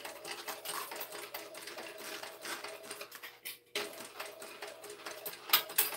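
TechSew 2750 Pro industrial walking-foot sewing machine stitching: a fast run of clicking stitches over a steady motor hum, stopping for a moment about halfway through and then sewing on.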